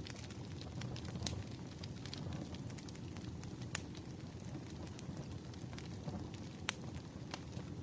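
Firewood burning, with a steady low rush of flame and frequent sharp crackles and pops from the logs.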